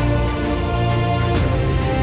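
Background music: sustained notes over a steady bass, with no speech.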